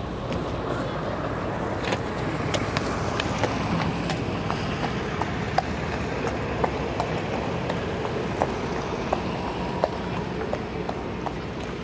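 Horse's hooves striking the sand arena in a regular gait rhythm, light sharp beats about two a second, over steady wind noise on the microphone.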